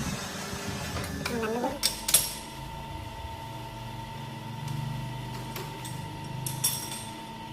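Metal lathe running with a steady whine, with sharp metal clanks about two seconds in and again near the end.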